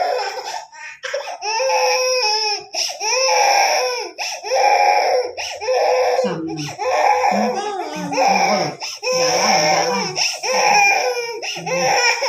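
Baby crying: about ten high-pitched wails of roughly a second each, broken by short breaths.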